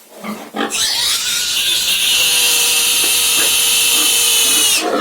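Mangalica pig screaming as it is caught and held: one long, loud, high-pitched squeal starting about half a second in and breaking off briefly near the end.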